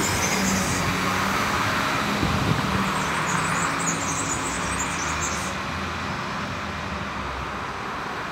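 Steady road traffic noise, with a vehicle engine hum underneath, easing off a little in the second half.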